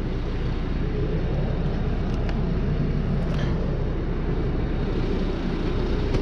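Portable band sawmill's engine running steadily, a constant low rumble.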